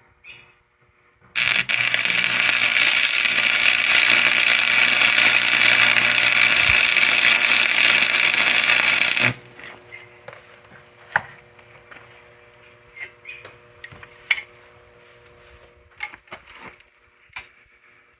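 Electric arc welding on steel: a steady loud hiss with a low hum that runs for about eight seconds and stops abruptly. Scattered light metallic taps and clicks follow.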